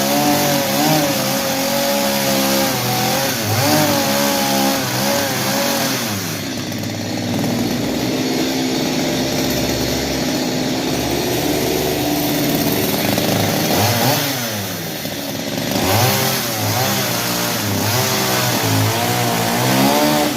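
Stihl chainsaw running at high revs while cutting wood, its pitch rising and falling under load. About six seconds in it drops to a lower speed for several seconds, then revs up again about sixteen seconds in.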